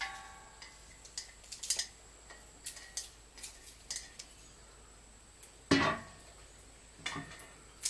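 Sparse light clicks and knocks, like small objects being handled, with a louder thump a little before six seconds in and a softer one about a second later.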